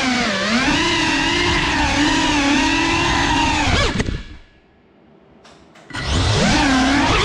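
Geprc FPV quadcopter's brushless motors whining, the pitch wavering up and down with the throttle. About four seconds in the motors cut out as the drone crashes to the floor, leaving a second and a half of near quiet, then they spin back up about six seconds in.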